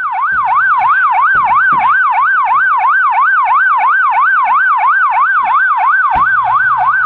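Police car siren in fast yelp mode, sweeping rapidly up and down about four times a second, steady and loud.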